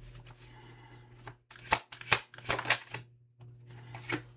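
Tarot cards being shuffled and handled, with several sharp snaps and flicks of card stock.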